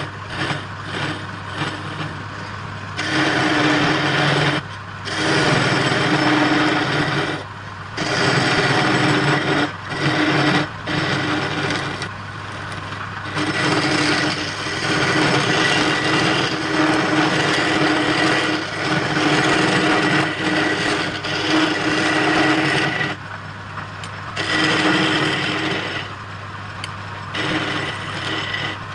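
Wood lathe running with a steady hum while a tool is pressed against the spinning wood in passes of a few seconds, broken by short gaps.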